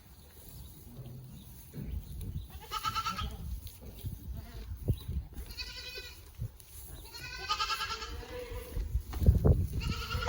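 Boer goats bleating: about four separate quavering bleats, one after another, over a low rumbling noise with a few short knocks, loudest near the end.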